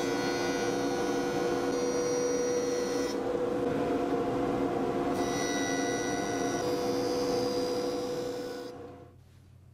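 Jointer running with a steady machine hum while a block of maple is fed across its cutterhead, first flat on its face, then on its edge against the fence. A higher whine comes in twice, during the first three seconds and again from about five seconds until just before nine. The sound then dies away sharply.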